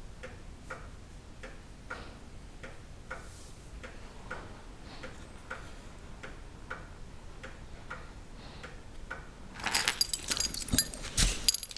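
Steady, even ticking, a little under two ticks a second, like a clock. Near the end, a sudden louder burst of rustling with metallic jingling.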